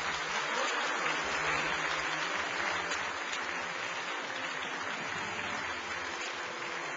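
Large audience applauding steadily, easing off slightly in the second half.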